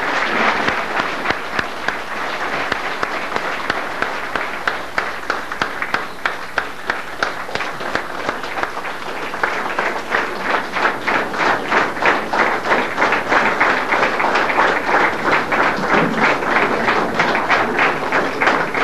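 Audience applauding. In the second half, the claps close by grow sharper and fall into a steady beat of about three a second.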